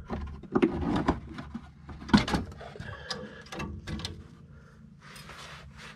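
Plastic front wheel-well liner of a 2016 Nissan Frontier being handled and pushed back into place: a string of knocks, clicks and scrapes, loudest about two seconds in, with a short rustle near the end.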